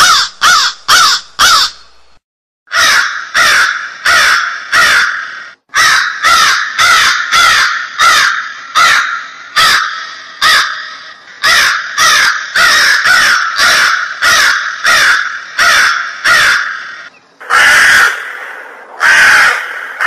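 Crow cawing in a long, fast series of short caws, about two a second, with brief pauses after the first few caws and again a few seconds later; near the end the series gives way to two longer, drawn-out caws.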